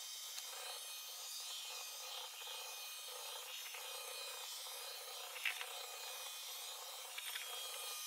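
Shark AI VacMop Pro robot vacuum-mop running on a hardwood floor during a mopping run: a steady whirring, rubbing noise, with a couple of faint clicks in the second half.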